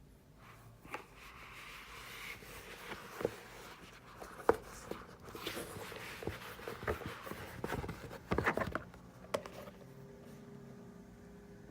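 Packaging and items being handled: irregular rustling with scattered sharp taps and clicks, densest about eight seconds in. A quiet steady hum is left near the end.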